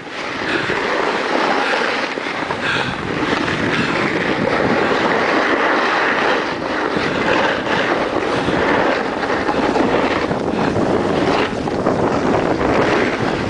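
Steady rushing noise of skiing downhill: skis sliding and scraping over packed snow, with wind on the microphone.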